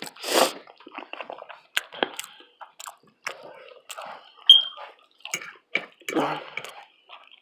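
Close-miked eating sounds: wet chewing and lip smacking with scattered sharp mouth clicks, a breathy burst at the start and a brief high squeak about four and a half seconds in.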